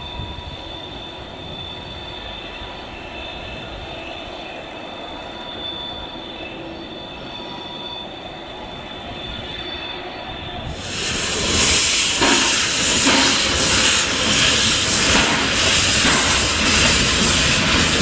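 Württemberg T3 steam tank locomotive at work, first faint and distant, then loud and close from about 11 seconds in, where an even steam hiss from the open cylinder drain cocks takes over as the engine rolls slowly past.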